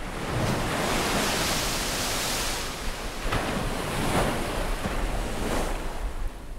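Ocean surf crashing, a loud rushing wash of waves that surges several times.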